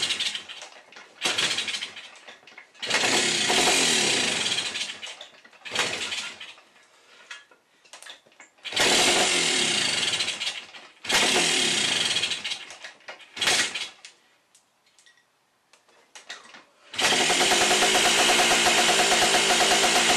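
Kawasaki F7 175cc two-stroke dirtbike engine being started: it fires in several short bursts of about a second or less, with pauses between, then catches about 17 seconds in and runs steadily.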